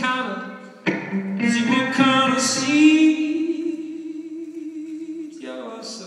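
Live song: a male singer sings a phrase and then holds one long note, over a steady low accompanying tone.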